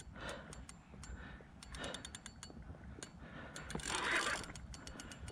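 Spinning fishing reel clicking in quick runs while a large wels catfish is played on a bent rod, with a short rush of noise about four seconds in.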